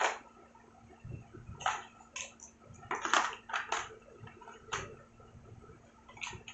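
Phone unboxing packaging being handled: a sharp tap at the start, then a run of short crinkling, rustling bursts.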